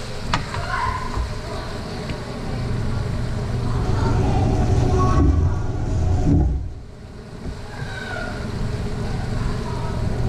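Ground beef frying in a skillet on a gas burner, stirred and scraped with a wooden spoon, over a steady low rumble. The sound drops briefly about two-thirds of the way through.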